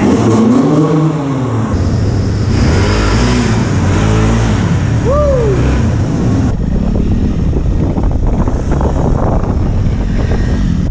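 Dirt bike engine revving up and down several times inside a brick building. About two-thirds through, the sound changes to motorcycle engines running outdoors.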